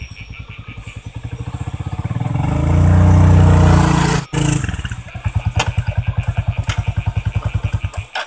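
Small underbone motorcycle's engine running as it rides up close, loudest about three seconds in, then chugging at low speed before cutting off abruptly near the end.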